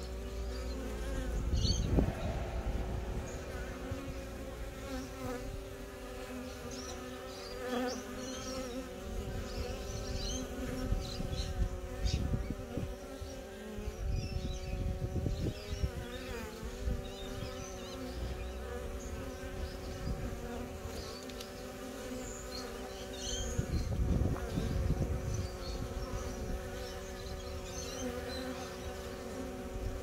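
Honeybees buzzing at their nest entrance: a steady, slightly wavering hum of many wings, with repeated bursts of low rumble.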